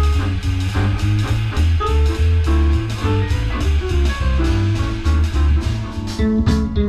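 A live small band playing: a drum kit keeps a steady cymbal beat over deep bass notes and a melodic line, with fuller chords coming in near the end.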